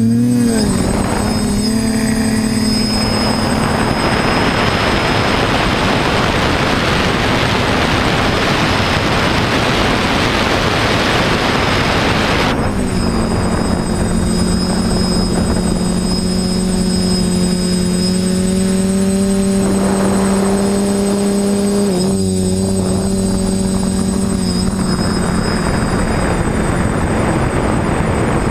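TBS Discovery quadcopter's electric motors and propellers whining steadily, the pitch shifting as the throttle changes, with a rush of wind noise over the first half.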